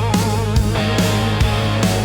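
Rock music: a steady drum beat under heavy bass and electric guitar, with a held, wavering lead note in the first half.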